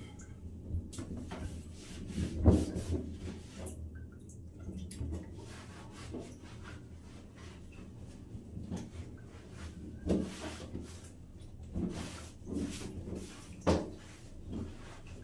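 Water dripping through a plastic drain pipe from the floor above, heard as irregular taps and clicks over a low hum, with a few louder thuds, the loudest about two and a half seconds in.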